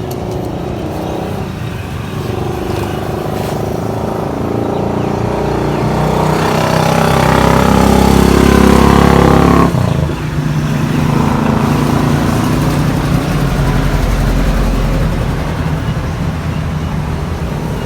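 A motor vehicle engine running, growing louder and revving for several seconds, then dropping off suddenly about halfway through and carrying on at a steadier, lower level.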